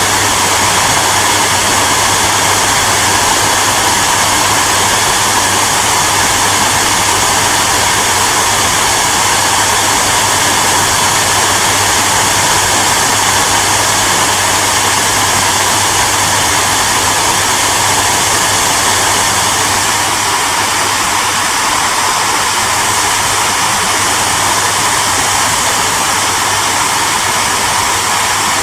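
Hair dryer running steadily: a constant rushing hiss of air from the fan over a steady low motor hum.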